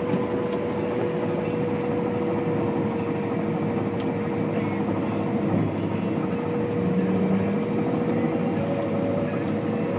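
Combine harvester running steadily while cutting wheat: a constant machine drone with one steady whine held throughout.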